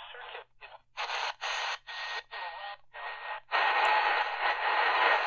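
Tecsun PL-380 portable radio's speaker as the set is tuned step by step up the medium wave band: short bursts of hissy reception, each cut off by the receiver muting between steps, about two a second. About three and a half seconds in it settles on 690 kHz, giving steady noisy AM reception with a thin steady whistle.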